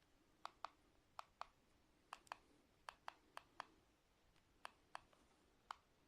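A series of faint, sharp clicks, about a dozen, many coming in quick pairs.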